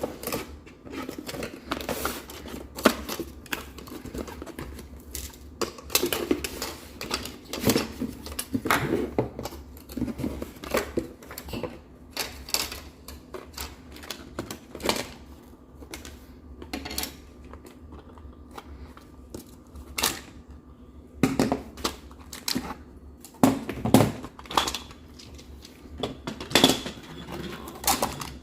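Plastic magnetic building tiles clicking and clattering as they are handled and snapped together, a fast uneven run of sharp clicks and knocks. A faint steady low hum underneath.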